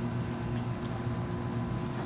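A steady low mechanical hum, like a motor or engine running, holding several even tones without change.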